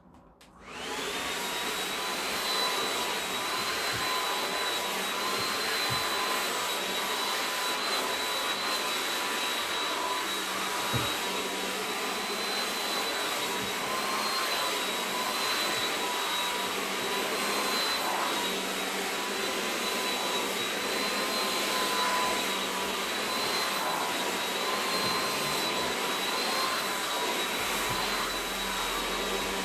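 Handheld hair dryer switched on about half a second in, then running steadily with a high fan whine.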